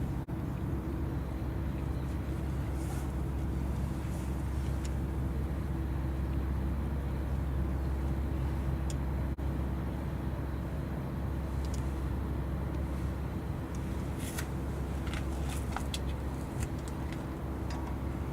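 Steady low engine drone with a constant hum, with a few short high clicks or chirps in the second half.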